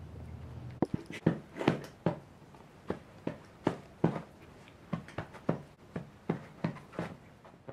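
French bulldog puppies giving a run of short, sharp yips and small barks, starting about a second in, quickly at first and then more spaced out.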